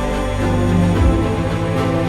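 Music: slow held chords over a bass line, with a soft low beat about a second in.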